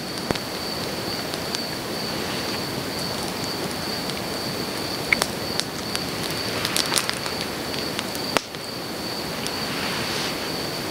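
Steady hiss of rain falling, with scattered light ticks of drops and a thin, steady high-pitched tone running underneath.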